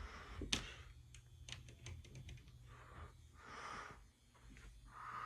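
Quiet ceiling fan pull-chain switch clicking over to medium speed, with a sharp click and then a few light ticks of the chain. A faint steady electrical hum from the running fan and its lights sits underneath.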